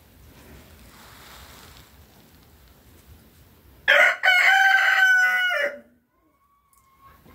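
A young cockerel crows once, about four seconds in: a short first note, then a held call that steps in pitch and falls away at the end, under two seconds in all. It is the immature crow of a cockerel still learning to crow.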